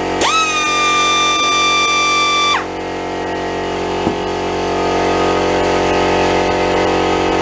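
Pneumatic straight die grinder spinning free with no load: its whine climbs quickly to a steady high pitch, holds for about two seconds, then winds down. Under it a portable air compressor runs steadily, pumping its tank back up.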